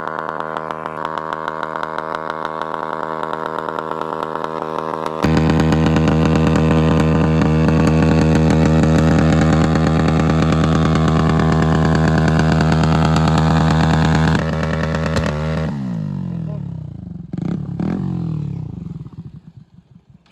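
Bajaj Pulsar NS 125's single-cylinder engine running while ridden, getting suddenly louder about five seconds in. After about fifteen seconds the engine note falls as the bike slows, and it dies away near the end.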